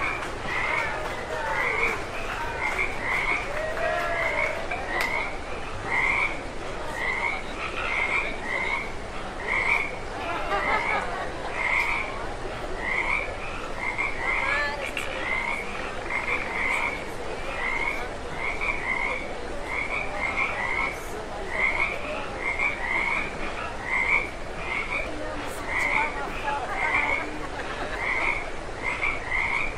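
Frog croaking over and over in short, evenly repeated calls, about two a second, with a murmur of crowd voices beneath.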